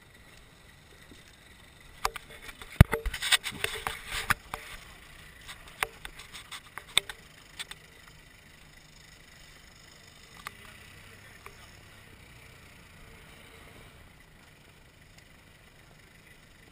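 Off-road 4x4 crawling over boulders: a burst of sharp knocks and cracks about two to five seconds in, the loudest near three seconds, thinning out to a few separate knocks, over a faint background.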